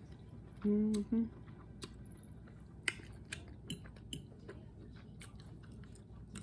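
Chewing of chitterlings with small mouth clicks and a fork clicking against a glass bowl, with one sharper click about three seconds in. A short hummed 'mm-mm' about a second in.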